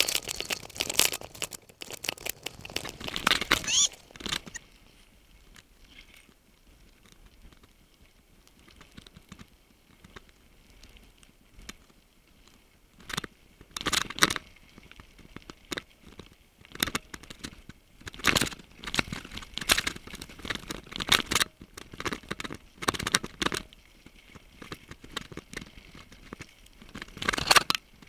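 A mountain bike clattering and rattling over a rough, leaf-covered trail on a fast descent, in irregular bursts of knocks. There is a quieter stretch from about five to thirteen seconds in.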